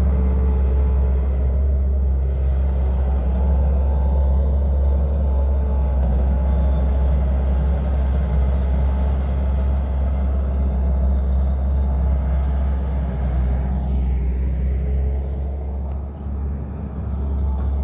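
Bobcat skid-steer loader's diesel engine running steadily with a deep rumble as it pushes soil. The sound drops briefly and shifts in pitch near the end.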